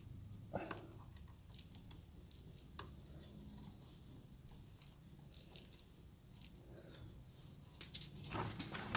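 Faint, scattered small clicks and taps as a tiny set screw and driver are worked against a plastic RC truck push bumper. A few louder clicks come near the end.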